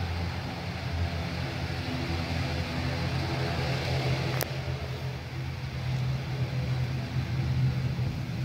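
Steady low engine hum with a rushing hiss, and one sharp click about four and a half seconds in.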